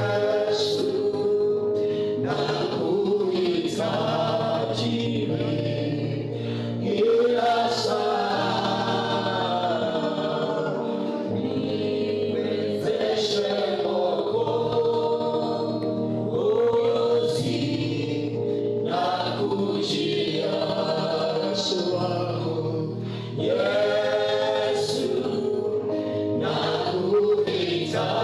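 A group of voices singing a gospel worship song together over a steady, held low accompaniment.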